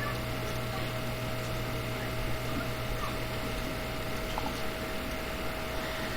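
Steady background hum with a faint hiss and a thin steady tone running through it; no burp is heard.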